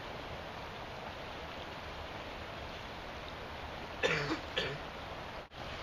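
A person coughing twice in quick succession about four seconds in, over a steady background hiss.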